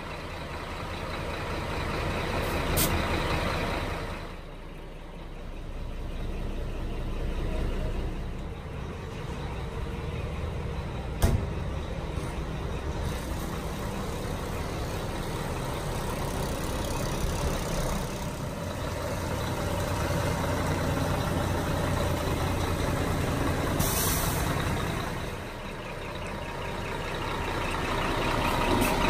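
Scania P380 tipper truck's diesel engine idling steadily, with a short hiss of air about three quarters of the way through.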